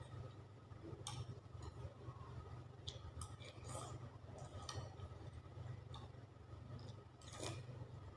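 Spoon clinking against a bowl during eating: a handful of short, scattered clinks over a low steady hum.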